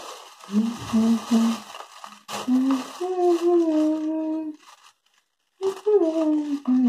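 A voice singing a slow Hindi song melody in long, gliding held notes, breaking off for under a second a little past halfway.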